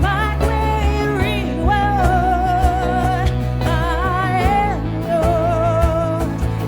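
Worship band playing a song: bass, keys and drums under a voice holding long, wavering notes.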